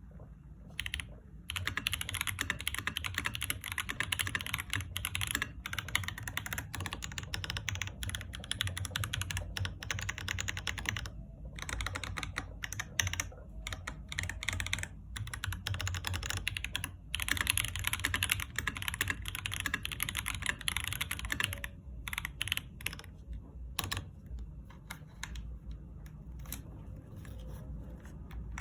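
Typing on an Epomaker EK68 mechanical keyboard with Budgerigar switches, completely stock with no mods: fast, continuous keystrokes with a hard clack, like two billiard balls hitting. The typing thins out to scattered keystrokes in the last several seconds.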